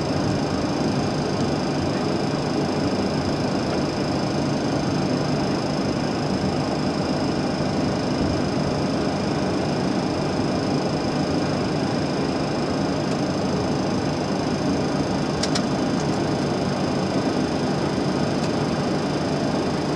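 Steady flight-deck noise of a Boeing 737-300 taxiing in at idle: engine and air-conditioning hum with a constant high whine. Two brief clicks come about fifteen seconds in.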